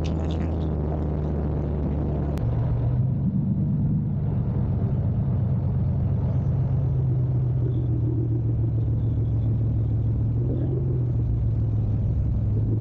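An SUV driving on a paved road: a steady low engine drone under tyre and wind rumble. There is one sharp click about two and a half seconds in, after which the rumble gets louder.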